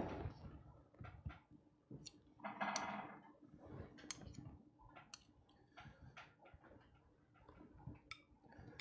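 Faint, scattered clicks and taps of two metal spoons against each other and a glass bowl as soft cheese filling is scraped off onto fresh pasta squares. A brief louder sound comes about three seconds in.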